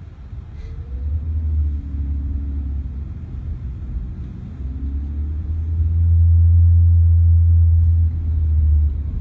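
Inside the cabin of a self-driving Ford Fusion pulling away and gathering speed: a deep rumble of engine and road, with the engine note climbing in short rises, growing loudest in the last few seconds.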